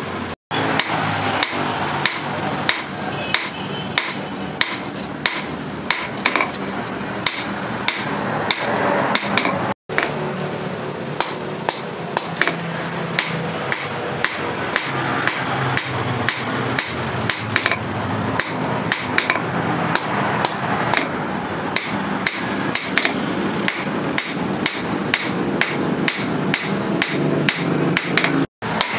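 Hand hammer striking a red-hot steel knife blade on a steel anvil in steady, regular blows, roughly one and a half a second, over a steady background noise: the blade being forged to shape.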